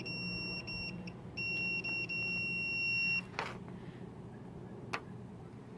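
Digital multimeter's continuity beeper sounding as the probes make contact: a few short broken beeps in the first second, then one steady high beep of about two seconds. Two faint clicks follow.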